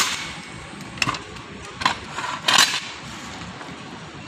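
Manual lever-type tyre bead breaker knocking against a steel wheel rim as its long bar is worked: a few sharp metallic knocks about a second apart, with a longer scraping clatter about two and a half seconds in.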